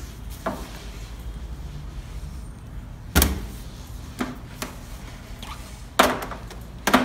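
A few sharp clicks and knocks from handling a length of clear plastic tubing, the loudest about three seconds in and twice near the end, over a faint low hum.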